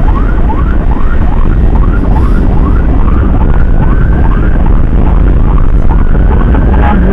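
Emergency siren on a fast yelp, rising sweeps about three a second, over the heavy rumble of wind and engine on a moving motorcycle. A second, slower siren tone glides up faintly through the middle.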